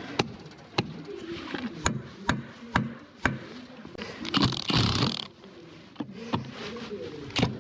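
Hand tools working on metal parts: a series of sharp, irregular metallic clicks and knocks, with a louder scraping sound about four to five seconds in.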